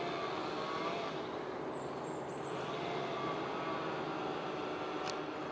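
Steady outdoor background noise, an even hiss and rumble, with a faint short click near the end.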